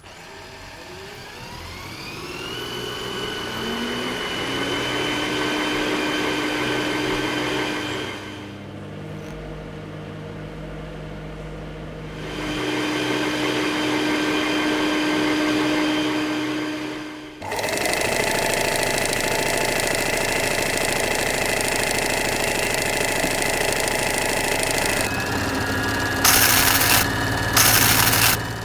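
Robot sound effects made from household items: a small motor whirring as it spins up in pitch over the first few seconds, then steady whirs that change in pitch every few seconds. Two short hissing bursts near the end.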